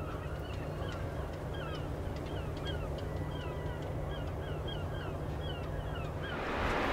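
Birds calling over and over, short downward-hooked calls about three a second, over a low steady hum. Near the end, wind noise on the microphone swells up.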